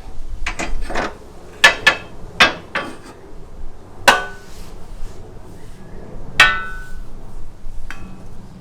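Steel parts and tools clanking: a series of about ten sharp metallic knocks, several ringing briefly, as the chassis brace and hardware are handled against the car's underside.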